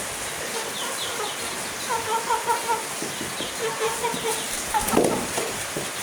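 Chickens clucking in quick runs of short repeated notes, with a brief louder sound about five seconds in.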